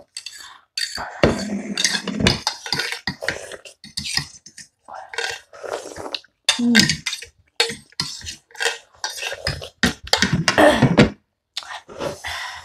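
People slurping and chewing instant ramen noodles noisily, with forks scraping and clinking on plates. There are many short, sharp mouth and cutlery sounds in quick succession.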